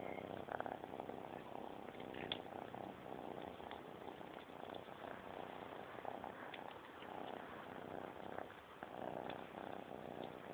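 An 11-week-old kitten purring steadily as she eats wet pâté food from a dish, with scattered small clicks of eating.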